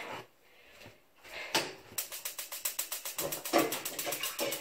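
A moment of silence, a short clatter about a second and a half in, then rapid, even mechanical clicking at about nine clicks a second from about two seconds in.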